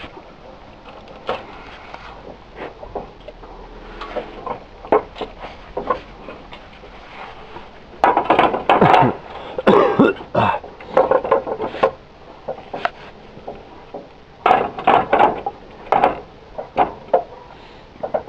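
Roof tiles clattering and knocking as they are handled and set onto the wooden battens, hard clicks throughout that come in loud clusters about eight seconds in and again around fifteen seconds in.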